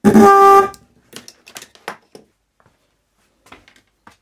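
New electric car horn, powered straight from jumper-lead clips, sounding one short blast of about two-thirds of a second: a bench test that it still works after being opened up. Light clicks and knocks follow as the clips and horn are handled.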